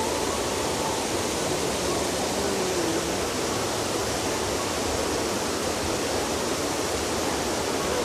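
Steady rush of water from a waterfall and a stream pouring over rocks, an even hiss without a break.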